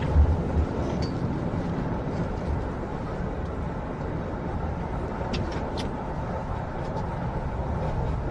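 Steady low rumble of a moving train carriage heard from inside, with a few faint clicks about five seconds in.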